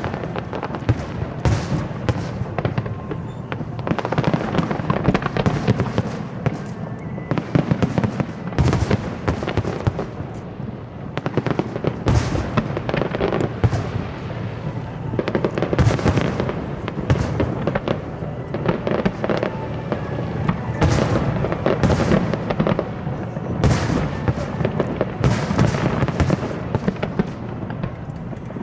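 Aerial fireworks show with shells bursting in quick succession: a dense, continuous run of bangs and crackles with hardly a pause.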